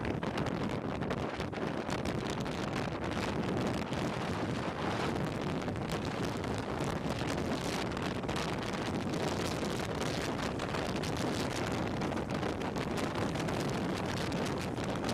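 Steady rush of wind buffeting the microphone at downhill speed, mixed with the roll of longboard wheels on asphalt.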